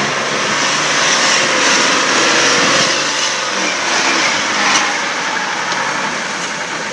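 Diesel off-road vehicle engine running, with a loud, steady rushing noise over it. The noise eases slightly after about five seconds.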